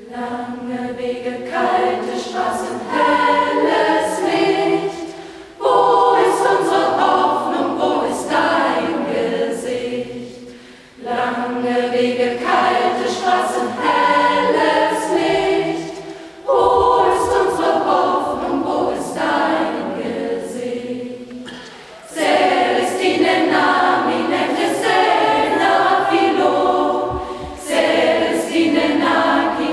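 Mixed choir of women's and men's voices singing, in phrases of about five or six seconds, each new phrase entering suddenly at full strength.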